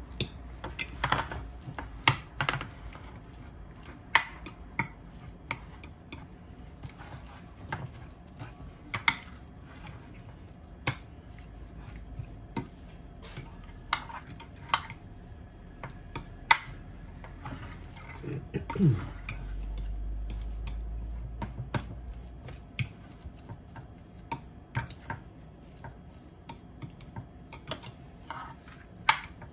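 A metal fork mashing potatoes in a glass baking dish, the tines clinking irregularly against the glass.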